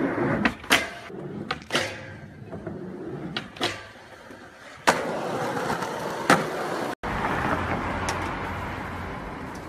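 Skateboard wheels rolling on concrete with the board grinding along metal handrails, broken by several sharp clacks of the board popping and landing. A brief dropout comes about seven seconds in.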